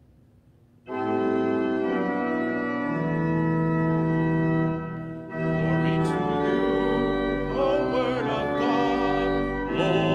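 Church organ starts about a second in, playing sustained chords, and a voice begins singing over it about halfway through: the Gospel acclamation sung before the Gospel reading.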